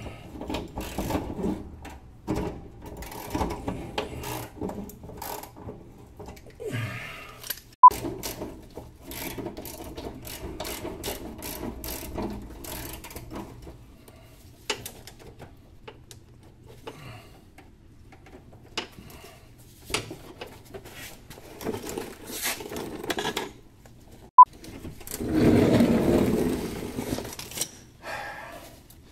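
Tools and car parts being handled under a car: scattered clinks, knocks and rattles of metal and plastic, with a few sharp metallic clinks and a louder scraping rustle near the end.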